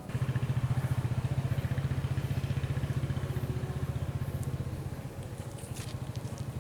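Rapid, even percussive massage strokes on the body, about a dozen dull beats a second, starting abruptly.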